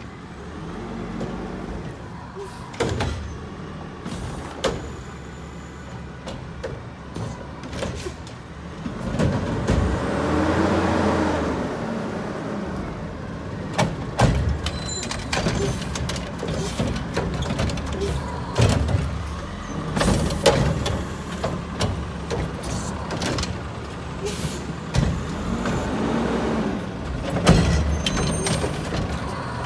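Mack LEU garbage truck with a Heil Freedom body running as it pulls up along the carts. Its engine revs up and back down about ten seconds in and briefly again near the end, with hissing and several sharp clanks and knocks.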